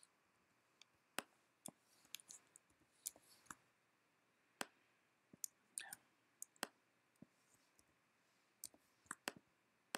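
Irregular sharp clicks of a computer mouse, well over a dozen, some in quick pairs, with near silence between them.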